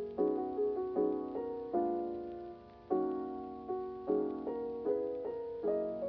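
Background music: soft solo piano playing gentle chords, each struck and left to fade.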